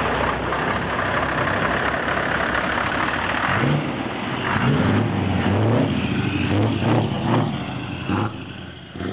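Straight-piped Scania R500 V8 diesel truck driving slowly past at close range. From about four seconds in its engine note rises and falls in short revs, then fades near the end.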